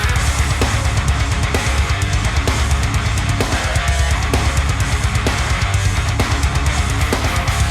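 Background music: loud heavy rock with distorted electric guitar and a driving drum beat.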